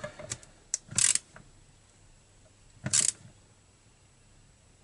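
Hand nut driver being twisted hard on the ignition module screws of a Partner 352 chainsaw, final tightening. A few light clicks at the start, then short scraping bursts about a second in and again near three seconds.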